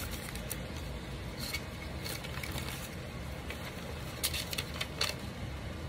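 Sheets of paper being handled, a handful of short rustles and crackles over a steady low room hum.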